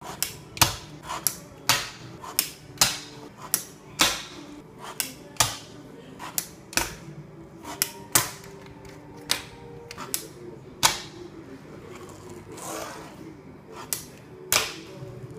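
Fingerboard tricks on a hard, glossy countertop: the little board's tail pops and the deck and wheels clack down in sharp clicks, about one or two a second at uneven spacing.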